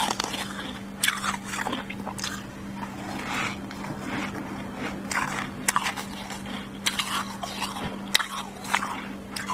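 Freezer frost being crunched between the teeth: irregular crisp, crackling bites and chewing, over a steady low hum.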